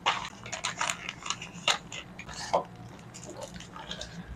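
Grey plastic courier mailer bag being cut open and handled, a run of short crinkles and crackles as the packaging is pulled out.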